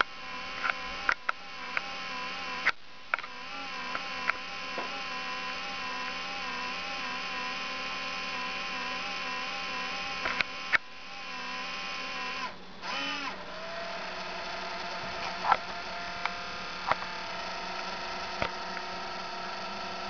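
Acer netbook's cooling fan whining with a cluster of steady, slightly wavering tones, with scattered clicks. About twelve and a half seconds in it briefly cuts out and comes back at a different pitch, sliding into place. The owner suspects a fan in need of cleaning, not the hard drive.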